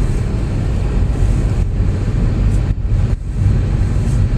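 Steady low rumble of a car's engine and tyres heard from inside the moving car, dipping briefly a few times.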